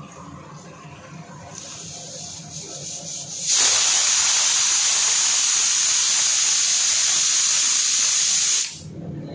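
Water poured from a mug into a kadai of simmering mutton curry, heard as a loud, steady hissing splash for about five seconds that stops abruptly near the end. A softer hiss comes first.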